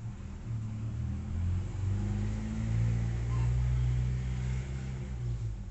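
Low engine rumble of a motor vehicle, swelling to its loudest around the middle and easing off near the end.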